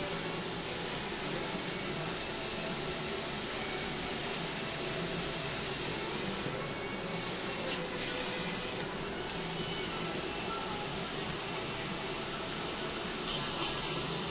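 Steady hiss and low hum of dental surgical equipment during implant surgery, with louder bursts of high hissing about eight seconds in and again near the end.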